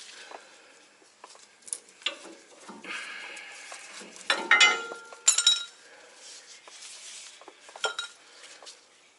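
Metal hardware clinking and clanking during hand work on a truck: a scraping rasp, then two loud ringing metal clanks around the middle, with lighter clicks and knocks before and after.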